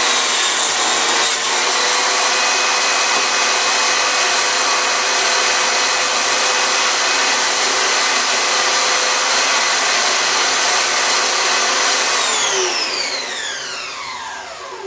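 Home-built table saw running at speed with a loud, steady whine, then switched off about twelve seconds in, the whine falling in pitch as the blade spins down.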